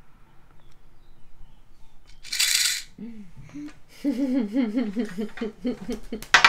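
A plastic sound-memory game cube being shaken once about two seconds in, a short hiss-like rattle of whatever is inside it, and again right at the end. In between, from about three seconds in, a person's voice wavers up and down.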